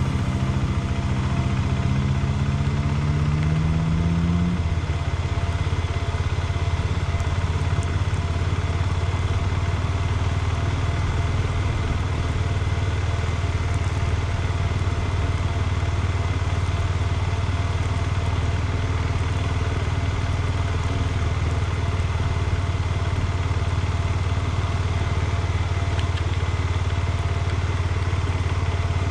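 KTM 390 Adventure's single-cylinder engine running steadily at low road speed, a constant low rumble. A rising tone over the first four seconds or so stops partway in.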